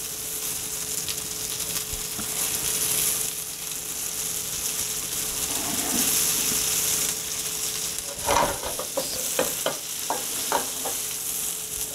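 Breaded cutlets sizzling steadily in butter in a skillet. In the last few seconds a slotted spatula clicks and knocks against the pan several times as the cutlets are moved.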